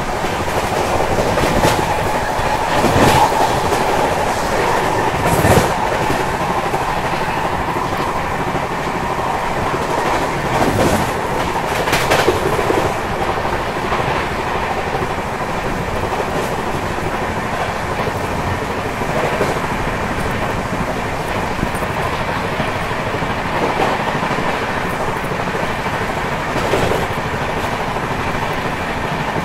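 Indian Railways passenger train running at speed, heard from the side of a moving coach: a steady loud rush of wheel-on-rail noise. Now and then there is a sharper clack as the wheels pass over rail joints.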